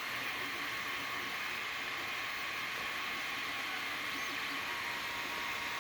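Creality Ender-3 3D printer running mid-print: a steady fan hiss with a steady high whine.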